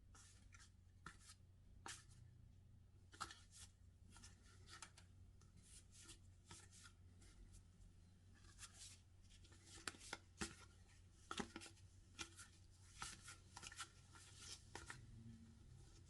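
Faint, irregular clicks and rustles of packaging and small items being handled and opened, coming more often in the second half, over a low steady hum.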